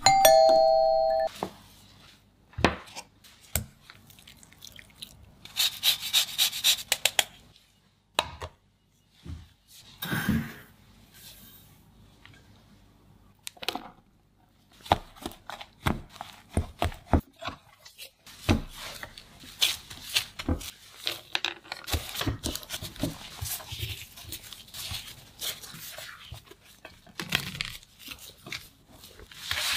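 Close-miked sounds of almond biscotti being made. A short pitched chime opens it, followed by scattered taps and clicks of bowls and utensils, with a spell of rapid clicking a few seconds in. Flour is poured into a glass mixing bowl, and near the end plastic-gloved hands knead the dough on a wooden board, rubbing and pressing.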